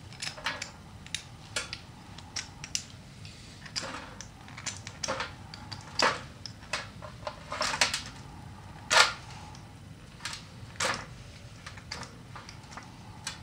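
Knife blade scraped along a magnesium fire-starter stick in a series of short scraping strokes at an irregular pace, about a dozen in all, shaving magnesium or striking the flint for sparks.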